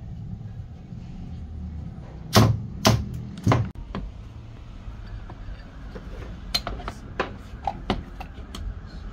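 Sharp knocks: three loud strikes about half a second apart, then a few lighter taps, over a steady low rumble.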